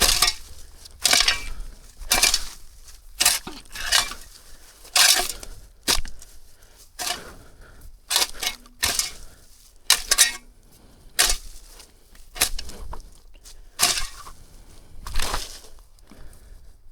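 Metal shovel blade repeatedly driven and scraped into dirt and overgrowth, one crunching stroke about every second.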